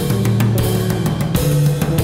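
Live band music: an electric bass playing a line of low notes over a drum kit.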